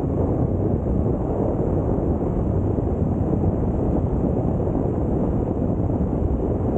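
Steady wind noise buffeting the microphone, mixed with the low rumble of a moving vehicle, unbroken throughout.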